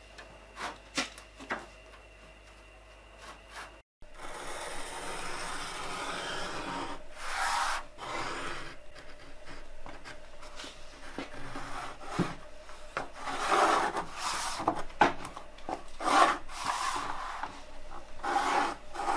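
Pencil tracing along the edge of an old boat transom laid on plywood: a continuous scratchy rubbing on the wood, coming in louder surges several times. A few light knocks sound in the first couple of seconds as the boards are handled.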